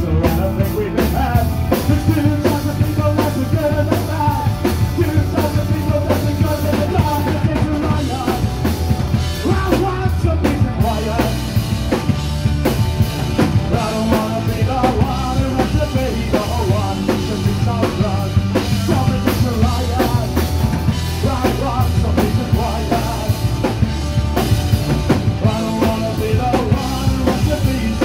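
Live punk rock band playing: electric guitars, bass and a drum kit with a steady bass drum, with a man singing into a microphone.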